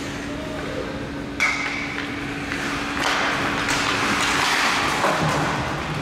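Ice hockey faceoff: a single sharp clack of stick and puck on the ice about a second and a half in, then a couple of seconds of skates scraping the ice as play starts. A steady low hum from the rink runs underneath.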